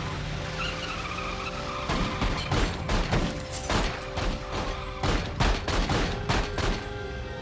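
Car tyres squealing as the car pulls away, then a rapid string of more than a dozen handgun shots over about five seconds, with film score underneath.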